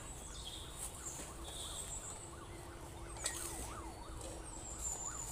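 Birds chirping over steady outdoor ambience, many short rising-and-falling calls a few times a second, with a single sharp knock about three seconds in.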